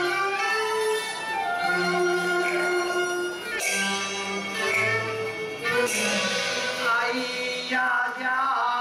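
Cantonese opera accompaniment: bowed string instruments play a wavering melody of held notes, with two sharp percussion strikes near the middle.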